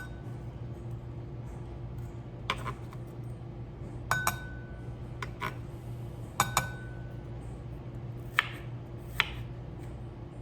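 Broad-bladed kitchen knife clinking against a cutting board while slicing: about nine sharp, irregular knocks, a few of them ringing briefly with a metallic tone. A steady low hum runs underneath.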